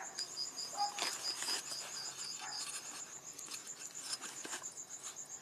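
Crickets chirping in a fast, even trill, with a second, lower-pitched cricket trilling alongside for the first couple of seconds. A few faint handling clicks are heard under it.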